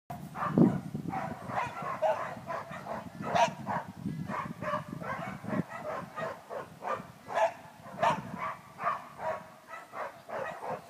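A dog barking repeatedly in short, irregular bursts, louder about three and a half and eight seconds in.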